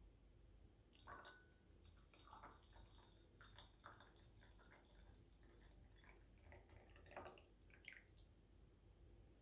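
Tea poured in a thin stream into a glass pitcher: faint splashing and trickling into the filling glass, with a few louder drips, stopping about eight seconds in.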